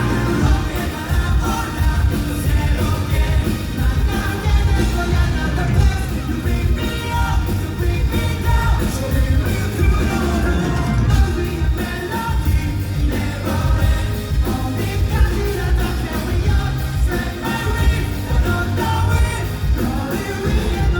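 A pop-rock band playing live, with a sung lead vocal over heavy bass and drums.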